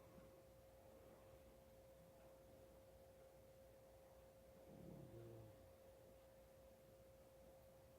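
Near silence with a faint steady high-pitched tone throughout; about five seconds in, one short, low snore.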